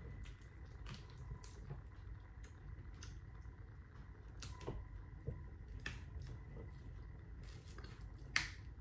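Faint, irregular clicks and small cracks, most likely from hands picking apart boiled seafood shells while eating, with one sharper crack near the end.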